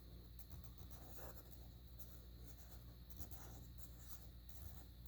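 Faint scratching of a pen drawing on paper in short, irregular strokes, over a low steady hum.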